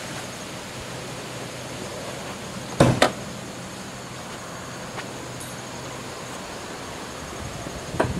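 Steady wind noise on the microphone, broken by two sharp knocks close together about three seconds in and another knock right at the end.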